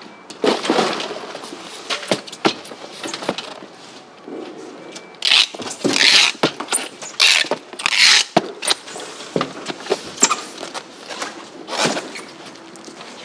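Packing a styrofoam box of mullet: ice is scooped and poured in just after the start, then packing tape is pulled from a hand dispenser in a few loud tearing strips around the middle. Scattered knocks and clatter of the boxes being handled run between.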